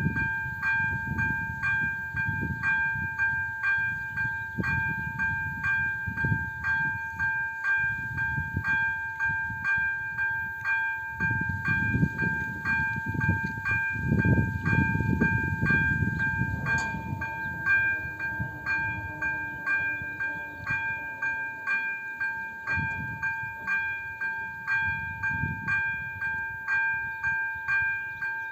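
AŽD 97 level-crossing warning bell ringing in fast, even, regular strokes, the electronic signal that the crossing is closing for an approaching train. A low, gusty rumble sits underneath.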